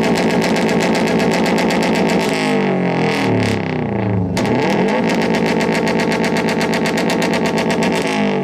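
2013 Subaru's turbocharged flat-four engine revved hard through a loud exhaust and held at high revs. It drops back about two seconds in, is revved up again sharply about four seconds in, and falls back near the end.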